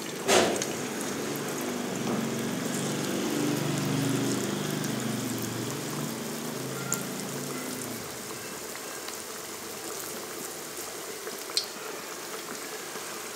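Potato seekh kababs frying in hot oil in a non-stick pan: a sudden sharp hiss about half a second in as a kabab goes into the oil, then steady sizzling, with a couple of sharp pops later on.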